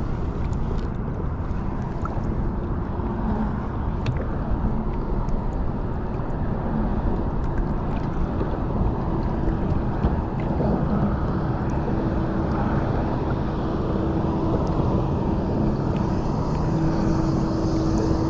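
Wind and choppy water around a kayak, with a steady engine hum that comes in about halfway and grows stronger near the end.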